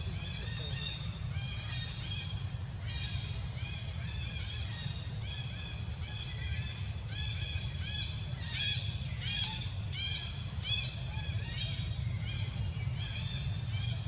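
A bird calling over and over in short, high, rising-and-falling chirps, about two a second, with four louder calls about two-thirds of the way through, over a steady low rumble.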